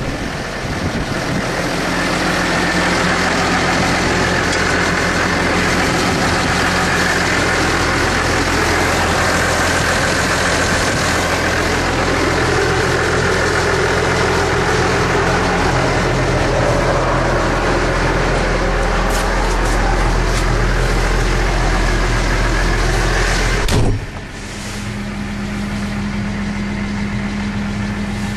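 Case IH Puma 155 tractor's 6.7-litre six-cylinder diesel idling steadily. A single sharp knock comes near the end, after which the engine is quieter and more muffled.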